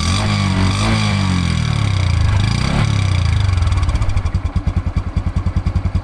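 Honda 125 cc single-cylinder Cub engine revved up and down a few times over the first three seconds, then dropping back to a steady idle with distinct exhaust pulses.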